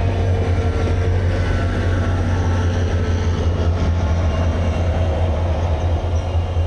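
SunRail diesel commuter test train passing close by, a steady low engine drone over rolling noise from the rails.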